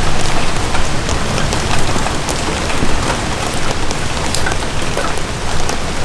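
Steady rain falling on trees and a leaf-covered forest floor, with many separate drops ticking sharply close by.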